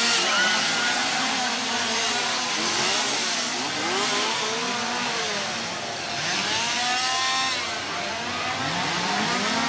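Several chainsaws revving together, their engine pitches rising and falling over and across one another in repeated revs.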